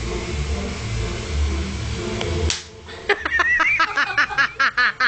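A steady low rumble, cut off about halfway through by one sharp slap. Then a girl's high-pitched, creepy laugh starts, gliding at first and then in quick even 'ha's, about five a second.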